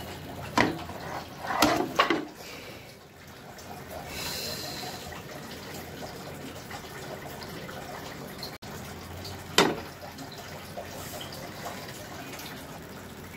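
Raw mutton pieces tipped from a plate into a pan of hot oil and fried onions, over a steady frying hiss. There are a few knocks of the plate or spoon against the pan in the first two seconds and another about halfway through.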